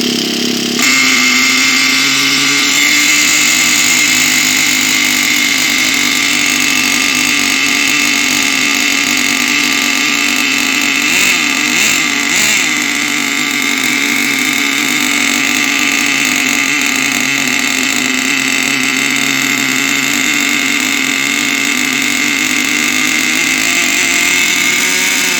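T-Max nitro RC truck's small two-stroke glow-fuel engine with an upgraded silencer, running steadily with a heavy sound; it picks up slightly about a second in and wavers a little midway. It runs cleanly on a cold start after sitting unused for three to four months.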